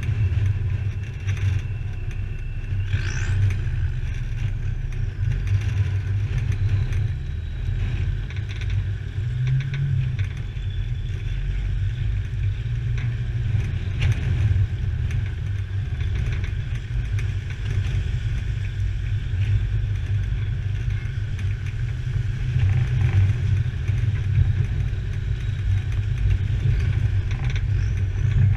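Land Rover driving along a rough green lane: a steady low engine and drivetrain rumble, with occasional short knocks from the vehicle over the uneven ground.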